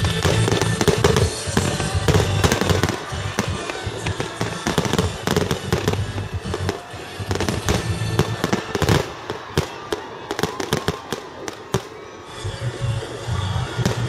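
Aerial fireworks shells bursting in quick succession, a rapid run of sharp bangs and crackles that grows densest between about eight and twelve seconds in.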